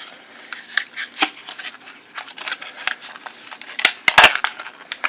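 Stiff plastic retail packaging crackling and clicking as a folding knife is pulled and worked out of it by hand, with the loudest crackles about four seconds in.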